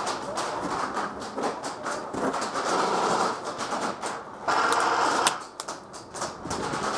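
Electric airsoft rifles firing on full auto: a rapid mechanical clatter that comes in bursts about a second long.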